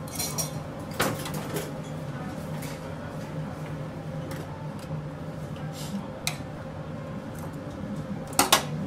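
Kitchen clatter of metal tongs and dishes: a few sharp clinks, the loudest two close together near the end, over a steady hum of kitchen equipment.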